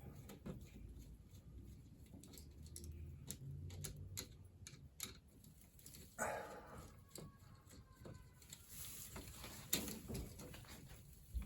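Faint scattered clicks and taps of a burnt wall outlet and its wires being handled and worked out of the electrical box, with a brief louder rustle about six seconds in.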